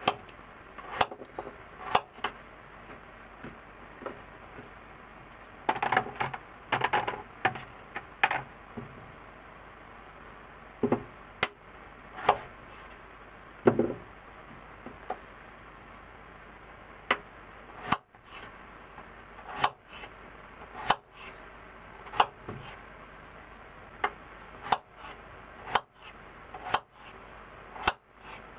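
Kitchen knife cutting peeled potatoes into chunks on a cutting board: irregular sharp knocks of the blade meeting the board, one every second or two, with a quick run of cuts about six seconds in.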